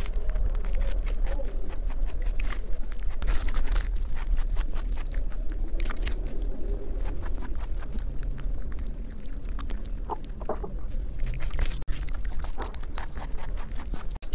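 A rabbit chewing watermelon, heard close up through a clip-on microphone: a quick, irregular run of small wet crunches and clicks as it bites and grinds the fruit.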